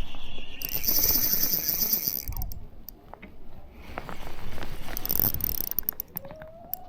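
Fishing reel being cranked to retrieve line, a mechanical whirring and clicking that comes and goes, with a lull about three seconds in.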